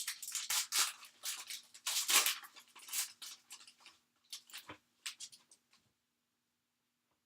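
Wrapper of a Panini NBA Hoops basketball card pack being torn open and crinkled in a run of sharp rustles that stops about six seconds in, with a soft knock near the five-second mark.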